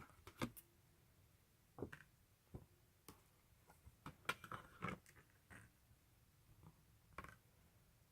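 Quiet handling noises of an album's packaging being unboxed: scattered short clicks, taps and rustles, busiest around the middle.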